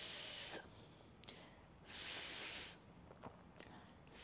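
A woman pronouncing the phonics /s/ sound as a drawn-out hiss, 'sss', three times about two seconds apart, each under a second long, the last starting near the end.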